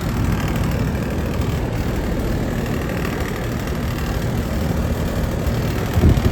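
Air-conditioning condenser units running: a steady low hum of compressors and fans, with a couple of low thumps near the end.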